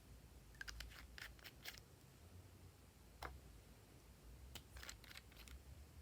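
Faint, crisp clicks and crackles from slime and its mix-ins being handled. They come in a quick cluster about a second in, once more midway, and in another cluster near the end.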